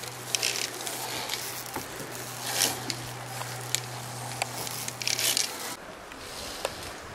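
Rustling and scraping handling noise in three short bursts, with a few sharp clicks between them and a low steady hum that stops about a second and a half before the end.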